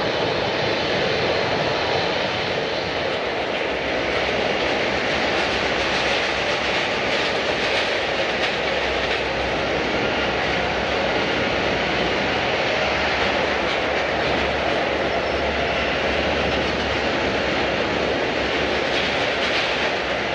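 Jet airliner's engines running, a loud steady roar with faint whining tones over it.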